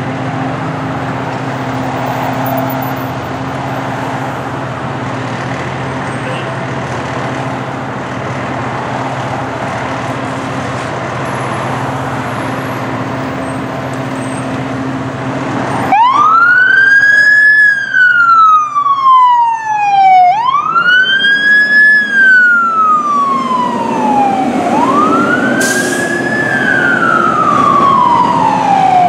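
Fire engine running with a steady low hum, then about sixteen seconds in its siren starts: a wail that rises quickly and falls slowly, repeating about every four seconds.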